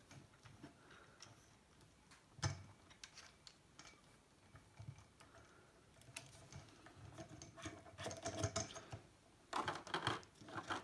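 Faint handling noise of a plastic U-Grip camera rig and a shotgun mic being fitted to its mount: scattered small clicks and taps, with a louder cluster of clicks near the end.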